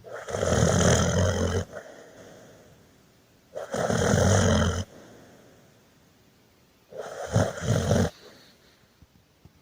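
Snoring: three loud snores about three and a half seconds apart, each lasting over a second, the third broken into a few short pulses.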